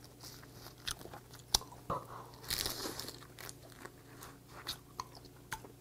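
A person eating steamed red snow crab: sparse small clicks and crunches of shell and chewing, with a brief sucking slurp of meat from the shell about two and a half seconds in.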